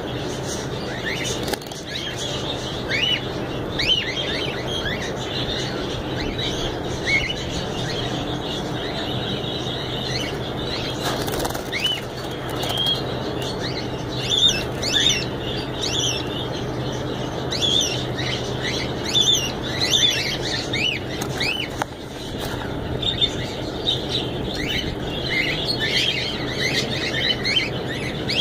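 Birds in a cage of doves: many short high chirps throughout, with now and then a brief flutter of wings, over a steady low hum.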